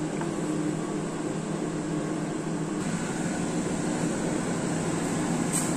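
Steady kitchen machine hum with an even hiss, with a few steady low tones running through it; the hiss grows slightly about three seconds in.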